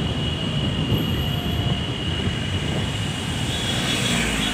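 Steady rumble of a vehicle moving slowly in traffic, heard from on board, with a thin, steady high-pitched whine over it. A second high tone joins near the end.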